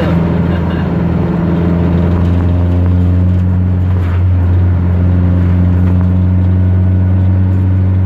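Fiat 147 four-cylinder engine with a homemade modified exhaust, heard from inside the cabin while cruising at low revs: a steady, deep drone that rises slightly in pitch in the first few seconds and then holds even.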